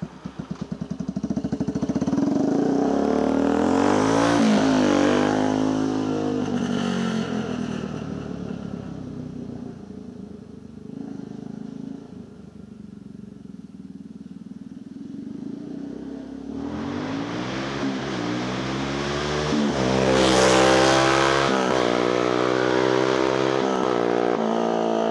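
Yamaha Warrior 350 ATV's single-cylinder four-stroke engine starting up and revving as the quad pulls away, its sound falling in pitch and fading into the distance. It then comes back louder, peaking about 20 seconds in as it passes close by with a rise and fall in pitch.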